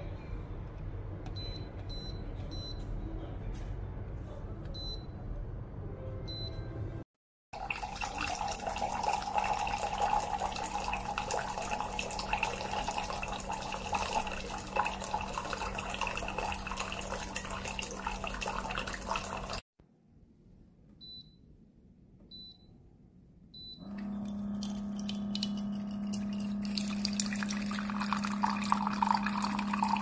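Instant hot water dispenser: its touch-panel buttons beep several times as they are pressed, then hot water pours from the spout into a mug. Near the end a steady hum starts and water runs into a glass, rising in pitch as the glass fills.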